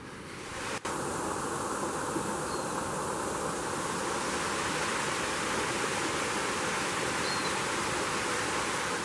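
A steady, even rushing hiss that starts abruptly, drops out for an instant about a second in, and cuts off abruptly near the end.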